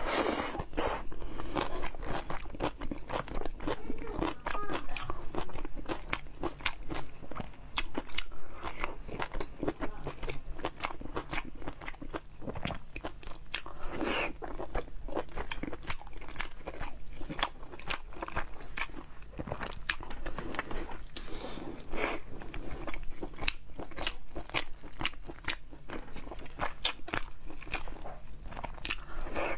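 A woman chewing and biting food right against a clip-on microphone: a dense run of short wet crunches and mouth clicks. A faint steady low hum lies underneath.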